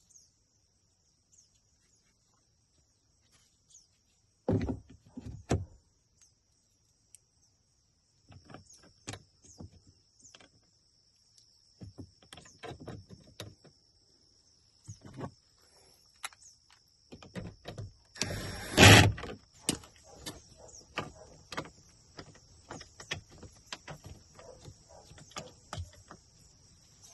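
Scattered clicks, taps and knocks from hands-on work on a pickup truck's door switch panel. A cluster of louder knocks comes about four seconds in, and one loud burst about a second long comes roughly two-thirds through. A faint steady high-pitched tone runs underneath.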